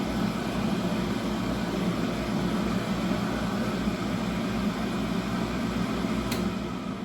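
Touchless electric hand dryer blowing with a steady, loud air rush and motor hum.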